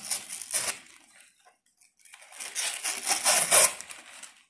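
Thin clear plastic wrapping crinkling and rustling as it is torn and pulled off a small portable hard drive, in two spells: a short one at the start and a longer one from about two seconds in.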